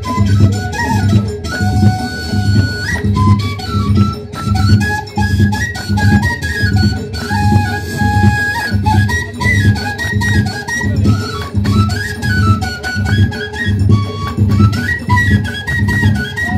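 Moroccan Amazigh ahwach folk music: a high stepping melody over a steady low drum beat, about one and a half beats a second.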